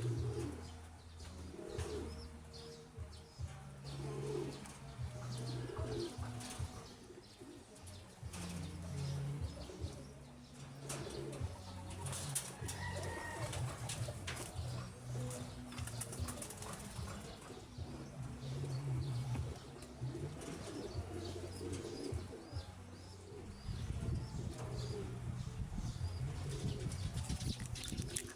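Domestic pigeons cooing in repeated low hoots, with bursts of wing-flapping now and then.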